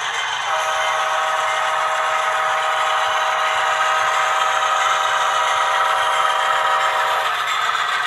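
An HO-scale model diesel locomotive's sound-decoder horn, modelled on a GE C44-9W, blows one long chord for about seven seconds. Under it runs the steady rattle and scrape of the model train rolling on the track.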